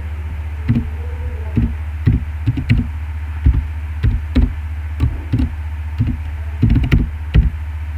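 Computer keyboard keys being typed in short, irregular runs of clicks, over a steady low hum.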